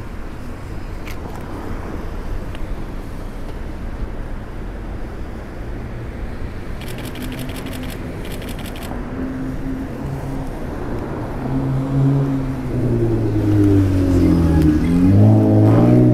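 Street traffic at a city intersection, a steady wash of passing cars. About halfway there is a short run of rapid ticks, and in the last few seconds a car engine revs up as it pulls away, its pitch climbing, dropping once at a gear change and climbing again, louder than everything else.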